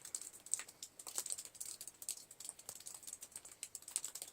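Heavy wet snow falling and melting: a dense run of light, irregular ticks and taps.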